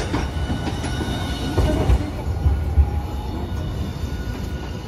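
Hiroden Green Mover LEX low-floor tram passing close by, its wheels rumbling on the street rails with a few knocks about two seconds in.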